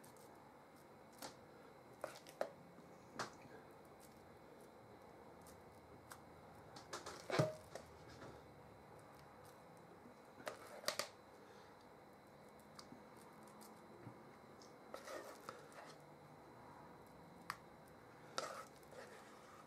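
A spoon dolloping mashed potato into a glass casserole dish: faint, scattered taps and clicks of the spoon against the glass, the loudest about seven seconds in.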